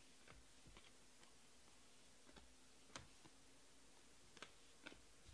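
Faint, scattered clicks of Panini Prizm baseball cards being flipped and slid against each other by hand, the clearest click about three seconds in.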